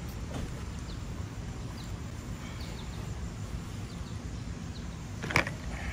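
Outdoor ambience: a steady low rumble with faint, short bird chirps now and then, and one sharp knock about five seconds in.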